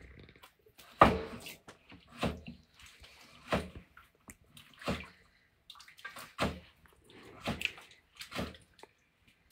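Water sloshing and splashing in a basin as pig intestines are washed by hand. It comes in about seven separate bursts roughly a second apart, the loudest about a second in.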